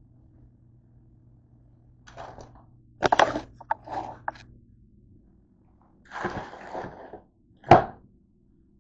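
Handling noise as a camera is picked up and carried: a cluster of knocks and clicks about three seconds in, a rustling scrape around six seconds, and one sharp knock near the end, the loudest sound.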